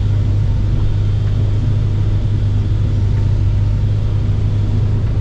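Excavator's diesel engine running steadily with a low, even drone, heard from inside the operator's cab.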